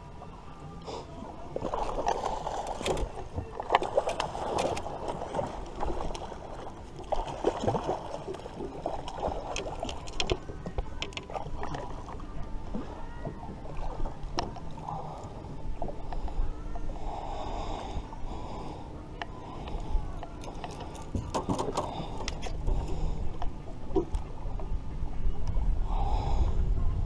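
Irregular knocks, clicks and clatter of rod-and-reel handling on a small aluminium fishing boat: a conventional reel cranked, and a rod pulled from its holder and worked against a hooked catfish. A low wind rumble on the microphone grows near the end.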